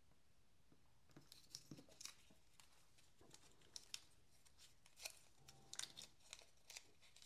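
Faint crinkling of a small plastic bag being handled, with scattered light clicks of small parts.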